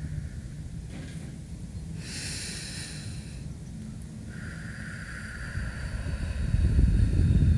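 Wind buffeting the microphone, a low rumble that eases and then swells again near the end, with faint steady high tones above it.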